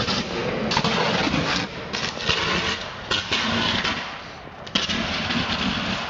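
Electrical arcing between a Class 455 electric train's collector shoes and an iced third rail: irregular bursts of loud crackling and buzzing, each starting abruptly, as the shoes struggle to draw current through the ice. It eases somewhat after about four seconds, with one sharp snap shortly after.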